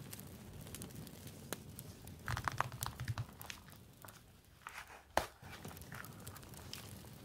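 Hands handling paper sticker sheets and a leather-covered notebook: light paper rustles and ticks, a cluster of soft knocks about two and a half seconds in, and one sharp click a little after five seconds.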